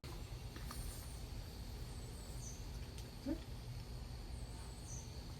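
Outdoor ambience with a steady low rumble and a few short, high chirps falling in pitch from birds, plus a brief low rising call past the middle.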